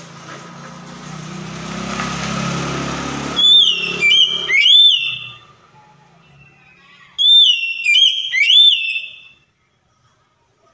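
Oriental magpie-robin singing: two bursts of three loud, clear whistled notes, each sliding up and then down, about three and a half seconds in and again about seven seconds in. Before the first burst a rush of noise with a low hum swells and then cuts off suddenly.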